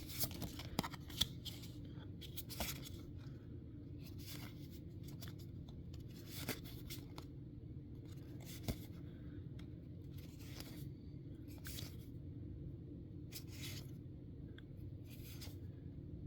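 Trading cards being handled and slid one behind another while flipped through: short, scattered swishes and light clicks of cardstock every second or two, over a steady low room hum.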